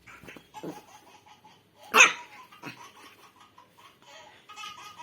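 A puppy barks once, short and sharp, about two seconds in, among fainter small noises.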